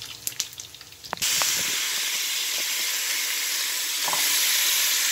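Bacon frying in a pan with scattered sharp pops of spitting fat, then about a second in a sudden change to a loud, steady sizzle of ground beef with onion, green pepper and garlic frying in a skillet, stirred now and then with a spatula.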